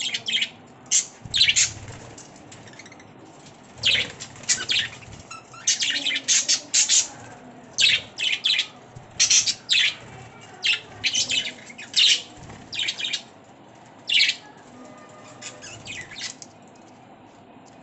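Budgerigars chirping: short, sharp, high chirps coming in quick clusters, thinning out to faint ones near the end.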